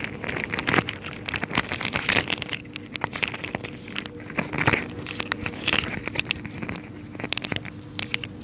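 Irregular crackling and clicking from objects being handled, over a steady low hum.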